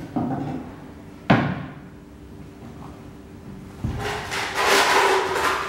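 A knife cutting a slice from an orange on a wooden chopping board, with a sharp knock of the blade on the board about a second in. Near the end comes a thud, then a longer, louder clatter.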